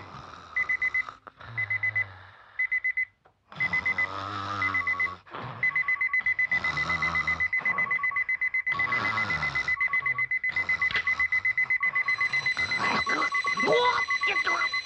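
Cartoon sound effect of an electronic alarm clock beeping: a high intermittent beep that becomes rapid and continuous about six seconds in, joined by a second, lower beep, with bursts of rougher noise between.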